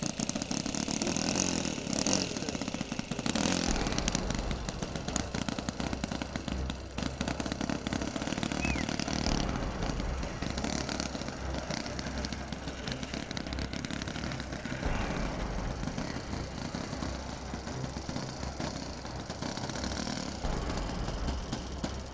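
Small model-airplane engine of an RC Piper Pawnee running at idle while the model taxis on the ground.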